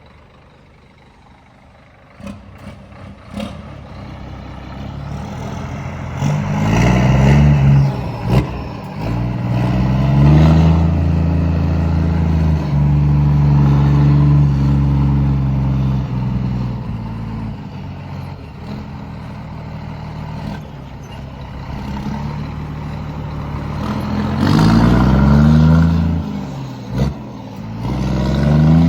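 Scania G420 truck's inline-six diesel revved while parked, sounding through a newly fitted dual exhaust tip: the engine note rises about six seconds in, is held high for several seconds and falls back to a lower steady running, then is revved up twice more near the end. A brief sharp sound cuts in twice between revs.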